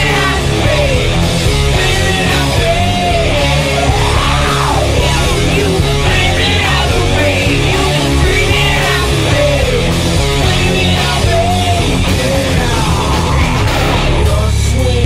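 Loud rock music with singing and a heavy bass.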